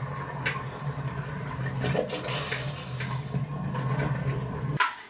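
Hot plaster-invested casting flask quenched in a pot of water, the water bubbling and churning with scattered sharp pops as the investment breaks up, over a steady low hum. The sound cuts off abruptly near the end.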